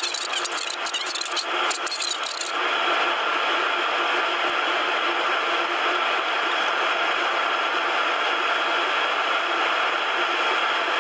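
Steady hum and hiss of a jet airliner's cabin with the engines running, with a faint steady whine. For the first two and a half seconds a rough rubbing, scraping noise lies over it, then stops.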